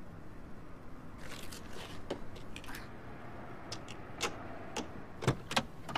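Scattered clicks, knocks and scrapes of things being handled inside a car. They come sharpest and loudest in the second half.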